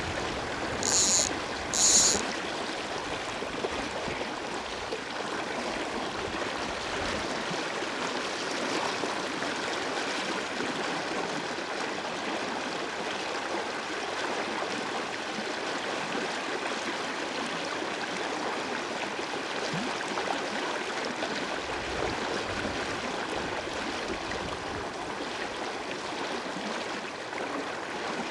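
River water flowing steadily, a constant rush of current, with two short high-pitched buzzes about a second apart near the start.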